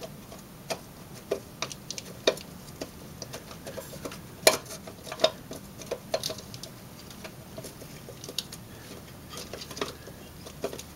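Irregular light clicks and knocks of a plastic distributor cap and spark plug wires being handled and fitted onto the distributor, the sharpest a little past the middle.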